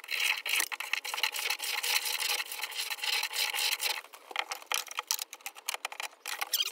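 A wooden shelf board scraping and knocking against the wood as it is worked into a tight spot during a test fit. Dense, irregular scraping for about the first four seconds, then scattered light knocks.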